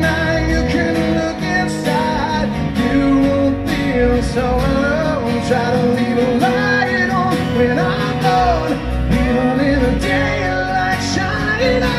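Live band playing a rock ballad: a male lead vocal over strummed acoustic guitar and electric bass, with a backing vocal.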